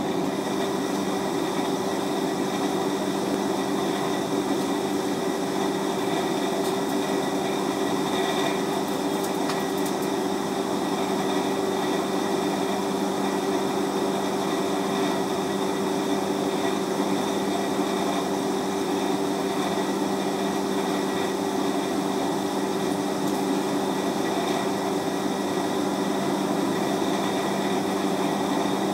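An electric motor running steadily, a constant hum and whirr with no hammer blows or change in speed.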